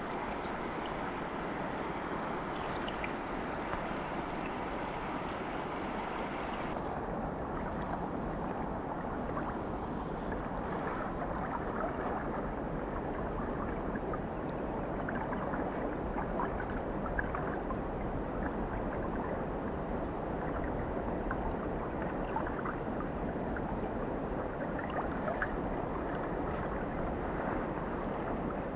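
Mountain stream water rushing and gurgling in a steady wash. About seven seconds in, the higher hiss drops away suddenly and the flow carries on duller.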